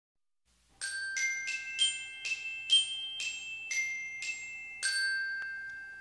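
Short intro jingle of bell-like, glockenspiel-style struck notes: about ten notes in a quick melody, roughly two a second, each ringing briefly. The last note is held and fades out slowly.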